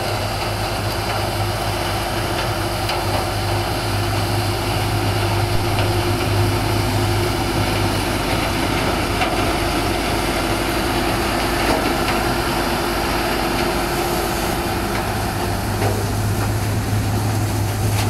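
Sugarcane harvester cutting cane, its diesel engine and chopping and elevator machinery running in a loud, steady drone with a strong low hum. A New Holland tractor's engine runs alongside it while pulling the cane trailer.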